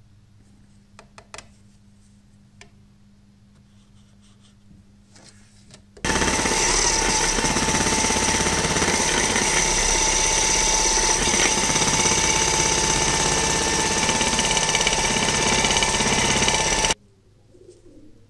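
Faint handling clicks, then a small angle grinder fitted with a thin cutting disc runs against a plastic pipe for about eleven seconds: a loud, steady motor whine with a grinding hiss that starts and stops abruptly.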